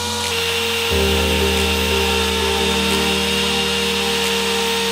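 Electric plunge router running and cutting a groove into a pine board: a steady high motor whine with cutting noise, heard under background music.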